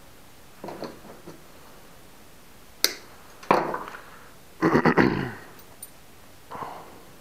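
Small metal spinnerbait parts being slid off the lure wire and set down on a metal sheet: a sharp clink about three seconds in, then clattering rattles, the loudest a quick run of clinks around five seconds in, with softer handling clicks before and after.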